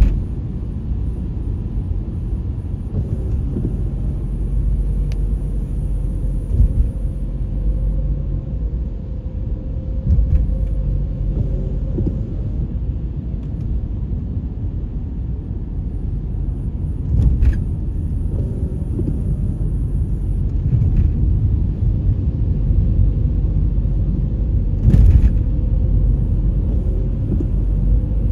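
Steady low rumble of road and engine noise from a car driving on a wet road, heard from inside the cabin. Two short knocks break through, about two-thirds of the way in and again near the end.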